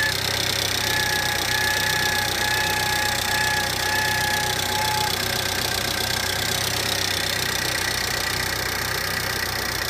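Car engine idling, with a thin high whine from the engine accessories that keeps breaking off and coming back, then fades out about five seconds in. It is the abnormal accessory noise the owner is recording.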